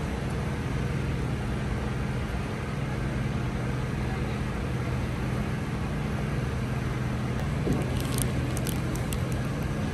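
Steady low background hum with a few held low tones. A few short plastic crinkles come about eight seconds in, as a clear plastic wrapper around a wooden fork is handled.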